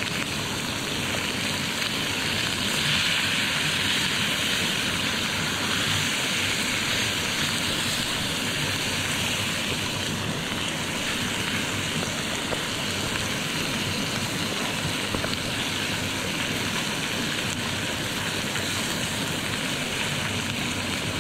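Sliced beef sizzling steadily in a small cast-iron skillet over a canister gas stove.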